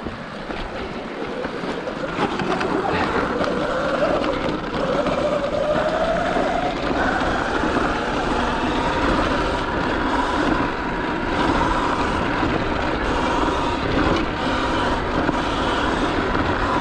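Sur Ron X electric dirt bike's motor whining, rising in pitch over a few seconds as the bike picks up speed and then holding steady, with wind and tyre noise underneath.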